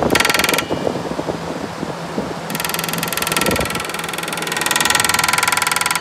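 Fan of a 1960s Westinghouse Custom Mobilaire 5000 window air conditioner running on high with its case off, heard close up. It clatters irregularly at first, then from about two and a half seconds in gives way to a steady high whir and hiss.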